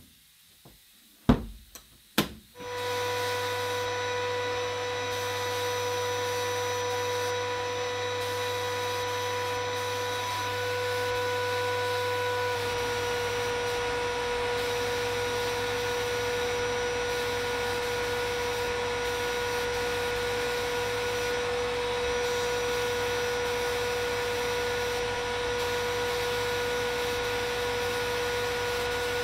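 A couple of sharp knocks, then about two and a half seconds in a media blasting cabinet starts up: a steady whine and hiss of air and abrasive as the blast gun works the pliers. A low hum under it changes about halfway through.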